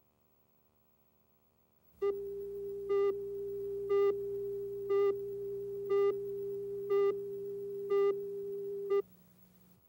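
Countdown-leader test tone: a steady pure tone that starts about two seconds in, with a brighter, louder beep once a second, eight in all, marking the numbers of the videotape countdown, then cuts off suddenly.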